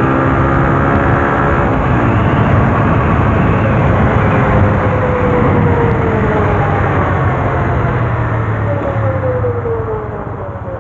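Italika RT180 motorcycle riding downhill with wind and road noise. Its engine note is steady for about the first two seconds, then sinks under the noise, and a whine slides down in pitch twice. The rider hears the oversize front tyre rubbing as the wheel turns.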